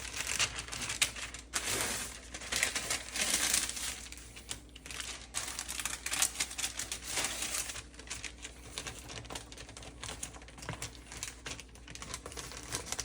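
Masking paper crinkling and rustling as it is handled and fitted into a cabinet drawer opening, with irregular bursts of masking tape being pulled off the roll and pressed down.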